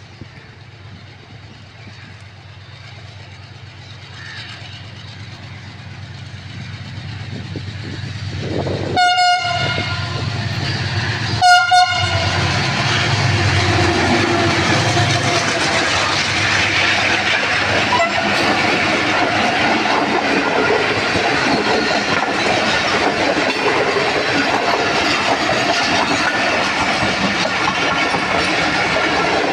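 A Pakistan Railways AGE-30 diesel-electric locomotive hauling a passenger express approaches at speed, its rumble swelling steadily louder. It sounds two short horn blasts, about nine and eleven and a half seconds in. Then the locomotive and its coaches rush past close by with loud, steady wheel and rail clatter.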